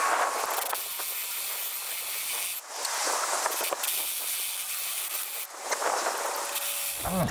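Cordless drill boring a 3/4-inch bit into a steel pipe post: a steady grinding hiss of the bit cutting metal, breaking off briefly twice.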